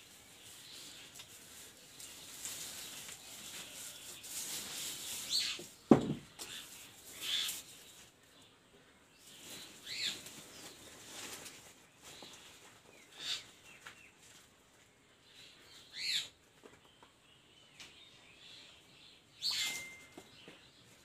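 Short bird chirps every few seconds. Between about two and six seconds there is a light rustling and crackling of dry straw burning in a clay stove. A single sharp knock about six seconds in is the loudest sound.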